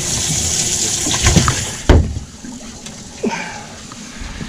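Water splashing as a hooked walleye thrashes at the surface, with a sharp knock about two seconds in, after which the splashing dies down.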